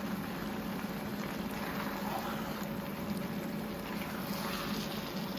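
Pot of stew sauce with cabbage just stirred in, bubbling steadily on the stove over a constant low hum.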